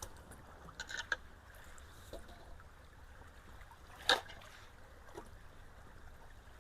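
Ditch water running steadily into a culvert, with a few brief sharp sounds of branches and debris being handled, the loudest about four seconds in.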